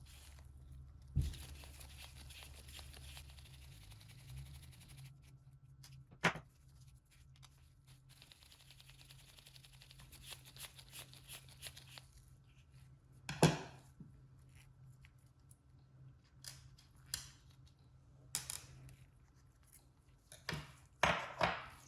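Small parts and tools being handled at a workbench during a horse clipper's strip-down and clean: a few sharp clicks and knocks, the loudest about halfway through and a quick cluster near the end, with two stretches of soft rasping hiss over a low steady hum.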